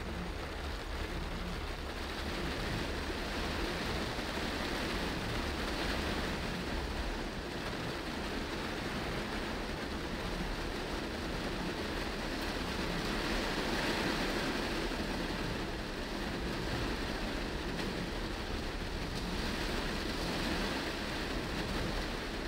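Heavy rain falling on a moving car and its tyres hissing on the flooded road, heard from inside the car as a steady noise with a low rumble underneath.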